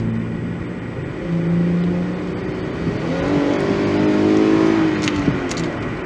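2011 Ford Edge's non-turbo 3.5-litre V6 accelerating under throttle, heard from inside the cabin. The engine note climbs in pitch from about halfway through, then drops away shortly before the end. The engine has an intermittent cylinder 6 misfire under load, which the mechanic traces to the ignition system.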